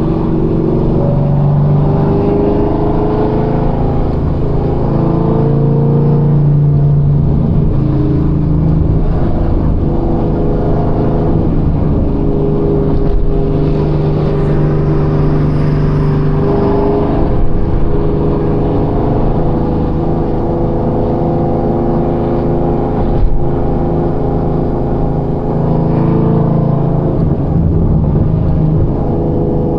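Chevrolet Camaro ZL1's supercharged 6.2-litre V8 running while the car is driven, its pitch rising and falling with engine speed. A short knock sounds about two-thirds of the way through.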